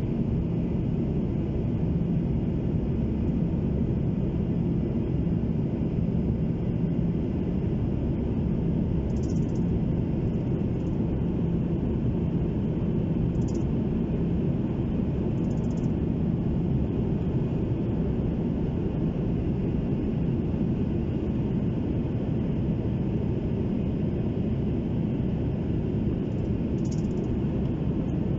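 Cabin noise of an Airbus A330-200 climbing after takeoff, heard from a window seat over the wing: the steady low rumble of the jet engines and the airflow, with a faint steady hum.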